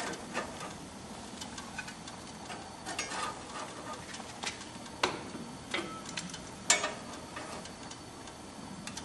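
Metal spatula scraping and clicking against barbecue grill grates as grilled fish burger patties are lifted off onto a plastic plate: a few irregular clinks and knocks, the loudest about two-thirds of the way through.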